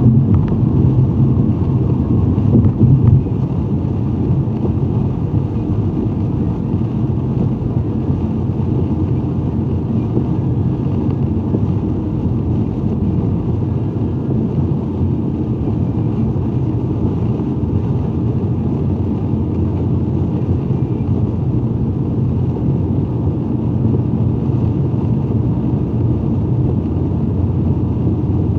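Steady low rumble of road traffic, a little louder for the first three seconds.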